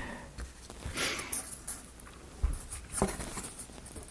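Light clicks and taps of laser-cut plywood model parts being pushed out of their sheet and handled, with a brief soft rustle about a second in.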